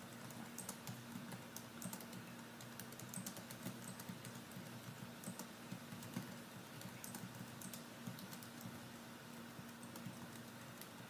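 Typing on a laptop keyboard: a quick, irregular run of soft key clicks, over a faint steady low hum.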